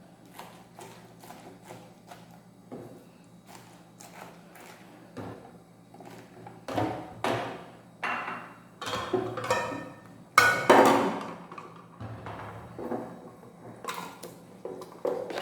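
Kitchen knife chopping pineapple on a cutting board: a run of irregular knocks of the blade on the board, with a few heavier chops in the second half.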